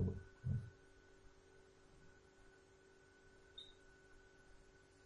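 Faint steady electrical hum with a thin steady whine on top, from the recording setup. Two short low thumps come in the first half second.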